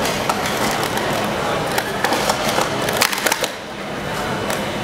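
Plastic speed-stacking cups clattering in a rapid timed run as they are stacked up and down on the mat, a fast flurry of sharp clicks that stops abruptly about three and a half seconds in.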